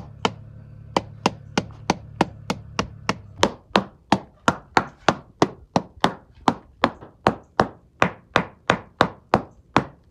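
Small hammer tapping rapidly along the wooden planks of an old wooden boat's hull, about three to four sharp taps a second, starting about a second in. The hull is being sounded for rot: solid planks give a clacky ring, rotten areas sound dull.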